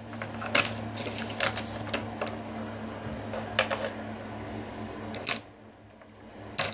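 Small plastic toys and a plastic crate clicking and tapping as they are picked up and set down on a table, a series of short sharp clicks with a louder knock a little after five seconds and another near the end.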